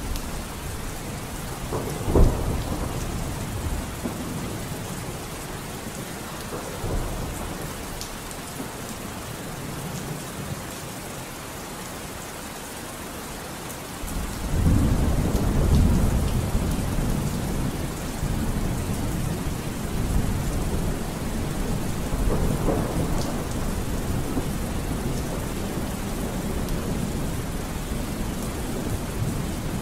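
Steady rain with thunder: a sudden loud clap about two seconds in, and a long low rumble starting about halfway through.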